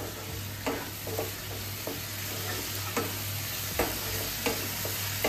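A spatula stirring and scraping a spice paste frying in a nonstick kadai, with a scrape about once a second over a steady sizzle.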